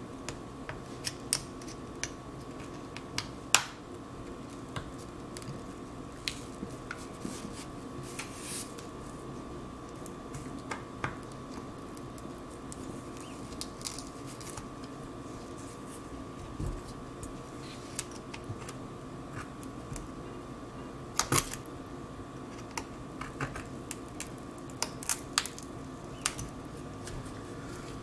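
Scattered small clicks and ticks as plastic opening picks and a pry tool work around the edge of an iPad's cracked glass digitizer, lifting it from its adhesive. A steady background hum runs underneath.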